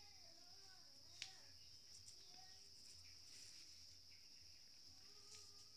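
Near silence, with the faint steady trill of crickets and a single sharp click about a second in.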